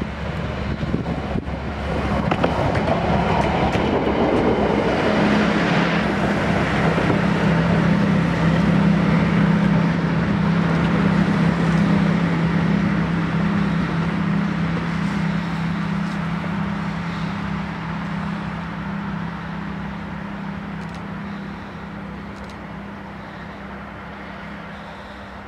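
Lyd1 narrow-gauge diesel locomotive running with its train: a steady engine drone that swells over the first several seconds, then fades as the train draws away.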